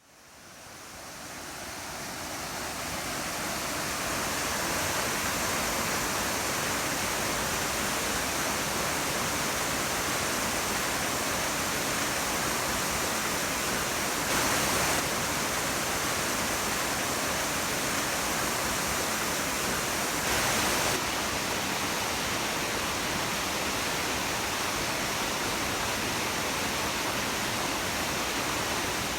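Waterfall rushing as a steady, even roar of falling water that fades in over the first few seconds, with two brief, slightly louder swells near the middle.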